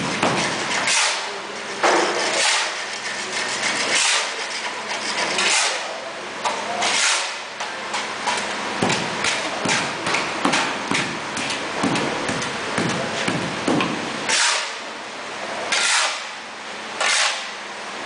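Steel shovel scraping over a tiled floor and digging through a pile of dry refractory powder in repeated strokes, turning the mix over. The strokes come more often in the middle.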